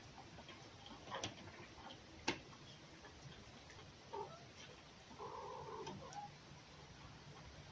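Faint animal calls: a short whining call about four seconds in, then a longer, arching one about a second later, after two sharp clicks in the first half.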